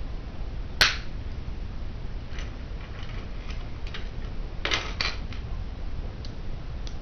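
Plastic Bionicle construction pieces clicking and snapping together as the set is assembled by hand. One sharp click comes about a second in, then scattered lighter clicks, with a quick run of several clicks around five seconds, over a steady low background hum.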